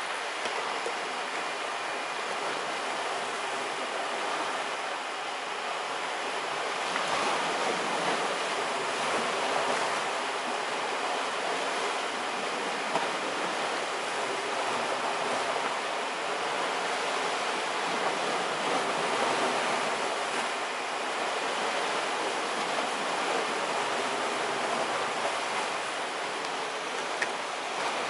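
Sea waves washing steadily against a rocky shoreline, a continuous rushing surf that grows a little louder about a quarter of the way in.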